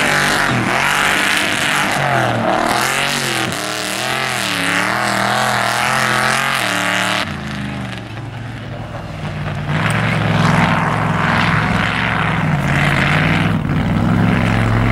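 Mud truck's engine revving hard, its pitch repeatedly rising and falling as the throttle is worked. About seven seconds in the sound cuts to a second run, where the engine pulls steadier, dips and then climbs again.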